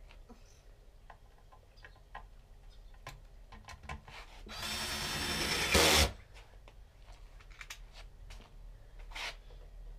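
Cordless drill driving a screw into pallet wood: one motor run of about a second and a half, getting louder and loudest just before it stops. Light knocks and clicks of boards being handled before and after.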